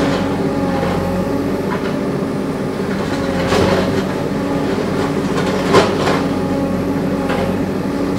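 Small excavator's diesel engine running steadily while it digs, with a few sharp knocks as the bucket breaks up and scoops asphalt, the loudest about two-thirds of the way through.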